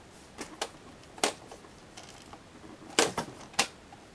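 Sharp plastic clicks and snaps from a Canon PIXMA iP110 portable printer's cover and trays being handled, about six in all, the loudest pair about three seconds in.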